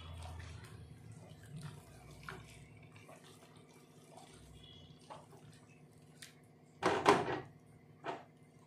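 Spatula stirring a thick potato-and-eggplant curry in a kadai: soft, wet scraping and squelching, with one louder stroke about seven seconds in and a shorter one near the end, over a steady low hum.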